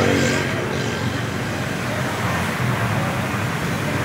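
Steady hum of road traffic, with a brief voice in the first half-second.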